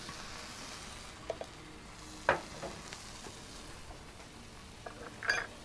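Steady low sizzle of burgers frying under a covering pot and buns toasting on a Blackstone flat-top griddle. A few light knocks break in, the sharpest about two seconds in, with a brief cluster of clicks near the end.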